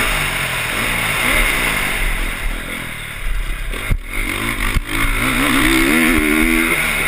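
Motocross bike engine heard from an onboard camera, revving up and down as the rider works the throttle. The revs drop off around the middle, two sharp knocks come about a second apart, then the engine climbs steadily again near the end.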